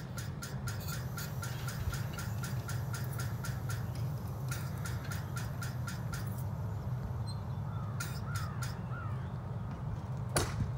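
A steady low engine rumble. Over it runs a rapid series of dry ticks, about five a second, that breaks off and resumes. A few short bird chirps come near the end, followed by a single sharp click.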